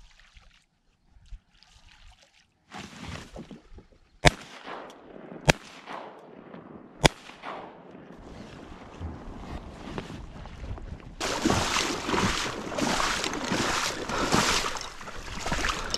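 Three shotgun shots from a 12-gauge Winchester SX4 semi-automatic, fired at ducks over decoys, about a second and a half apart, the first and last the loudest. From about eleven seconds in, pulsing splashing and rustling as a kayak pushes out through shallow marsh water and dead reeds.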